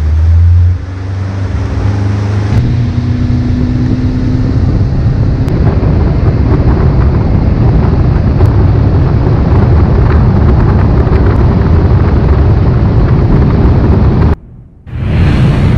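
Fishing boat running at speed across the lake: heavy wind rumble on the microphone over the low drone of the engine. The sound drops out briefly near the end and comes back.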